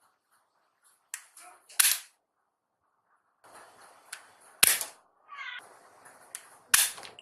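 Toy gun firing three times, each sharp shot preceded by a lighter click, with a brief rising and falling sound between the second and third shots.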